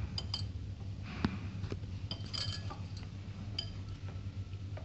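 Wrist bangles clinking against each other and against a glass mixing bowl while hands knead soft dough in it: a scatter of light ringing clinks and a few duller knocks.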